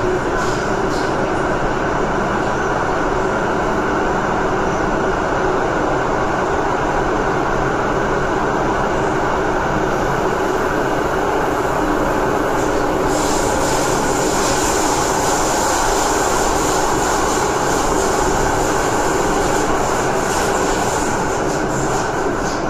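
MTR M-train electric multiple unit running through a tunnel: a steady rumble of wheels on rail, with a higher hiss joining about halfway through.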